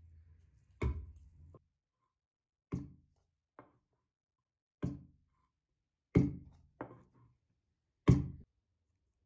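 Wooden mallet striking green olives on a wooden cutting board, about seven separate thunks a second or two apart, cracking the olives open to free the pits; the last knocks are the loudest.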